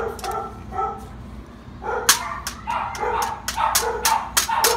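A dog barking over and over in short barks, with a run of sharp cracking knocks mixed in from about two seconds in.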